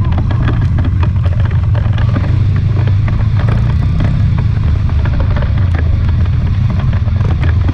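Trail motorcycle engine running during an off-road ride, with a steady low rumble and frequent short knocks and rattles.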